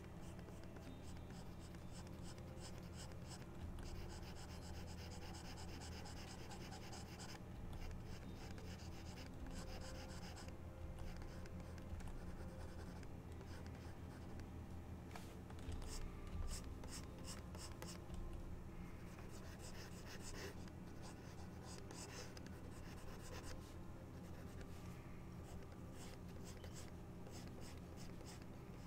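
Pen stylus scratching on a drawing tablet in runs of quick, short sketching strokes with brief pauses between them, faint over a steady low hum.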